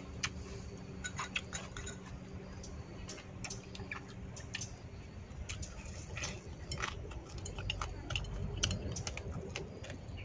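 Eating sounds: irregular sharp clicks and smacks of chewing grilled meat, with chopsticks clicking against a ceramic bowl.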